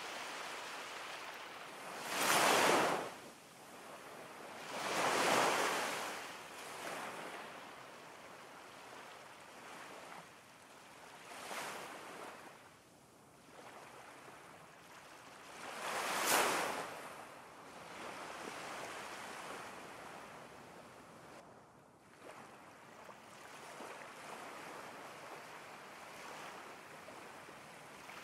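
Ocean surf: a steady rushing of waves that swells four times, each surge lasting about a second. The loudest surges come about two seconds in and about sixteen seconds in.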